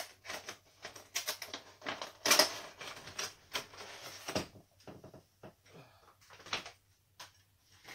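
Handling of a boxed Funko Pop vinyl figure's cardboard box and plastic packaging as the figure is taken out: an irregular string of clicks, taps and rustles, thinning to a few scattered clicks over the last few seconds.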